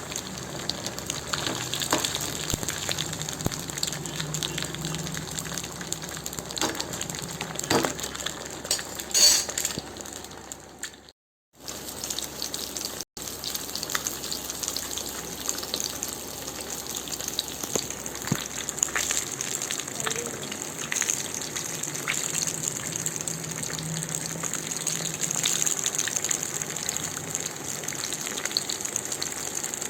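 Masala-coated vavval (pomfret) fish frying in hot oil: a steady sizzle with scattered crackles and pops. It breaks off for about half a second near the middle.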